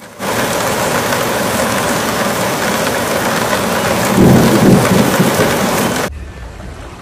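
Heavy hail and rain pouring down in a dense, loud hiss, with a low rumble swelling up about four seconds in. It cuts off abruptly near six seconds into the quieter, low rumble of a car's cabin while driving.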